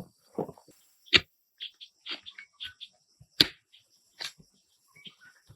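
Two sharp knocks, about two seconds apart, among scattered light clicks and rustling.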